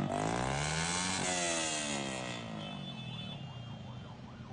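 Motorcycle engine revving: its pitch rises for about a second, then falls and fades away.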